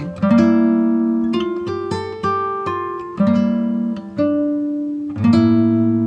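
Background music: acoustic guitar playing plucked chords, a new chord about once a second, each ringing and fading.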